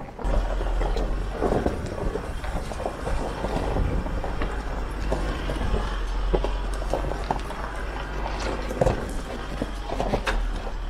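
Isuzu D-Max pickup's diesel engine running low and steady as it crawls up a steep, washed-out rocky track in low range. Loose stones crunch and knock irregularly under the tyres, and these knocks are the loudest sounds.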